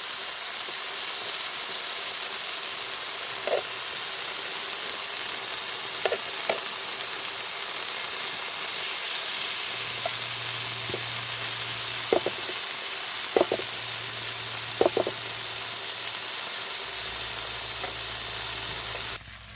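Pork front-leg slices sizzling steadily on a wood-charcoal grill, with a few short pops scattered through. The sizzle cuts off abruptly near the end.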